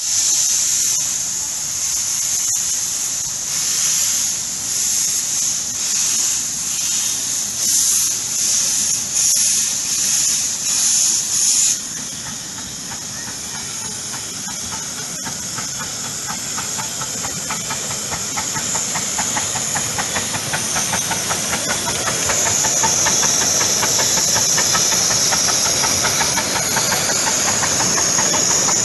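Miniature live-steam locomotive hissing steam, the hiss pulsing about once a second. About twelve seconds in the sound changes abruptly to a steam train running closer, its noise growing louder, with strong steam hiss again near the end as the engine passes.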